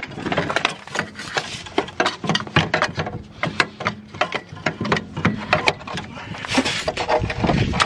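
Irregular clicks and knocks of hand tools on metal under a car, several a second, while a starter motor is being fitted.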